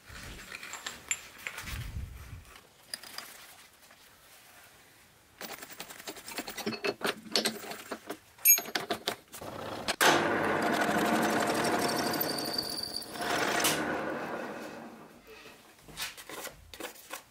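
Clicks and knocks of metal parts and the face-mill cutter being handled on a milling machine. Then the milling machine runs steadily for about four seconds before fading out.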